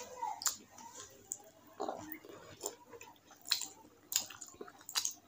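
Close-miked chewing of rice and curry with wet lip smacks: a string of sharp mouth clicks every half-second to second between softer squelchy chewing.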